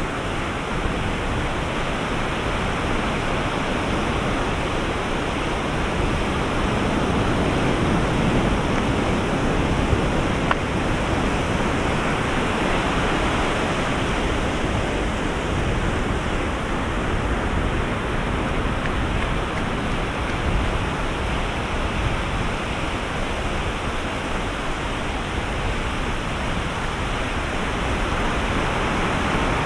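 Ocean surf washing onto a beach: a steady rushing noise of breaking waves that swells a little about a third of the way in.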